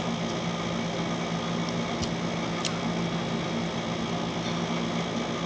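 Window air conditioner running with a steady, low hum. A couple of faint ticks about two seconds in.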